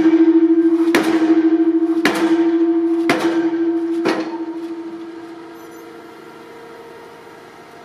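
Pile-driving rig's hammer driving a steel I-beam into the ground: four heavy blows about a second apart over a steady tone. About four and a half seconds in the blows stop and the sound dies down to a low steady engine hum.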